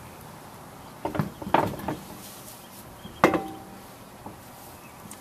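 Lug nuts clinking and clattering against the wheel and studs as they are put on by hand: a short run of clatter about a second in, then one sharp metallic clink with a brief ring about three seconds in.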